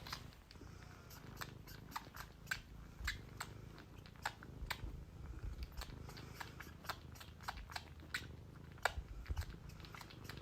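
A pet chewing, with faint, irregular crunching clicks a few times a second.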